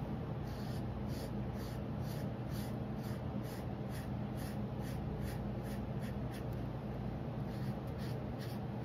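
Felt-tip marker scratching back and forth on paper, coloring in with quick strokes about two to three times a second, over a steady low hum.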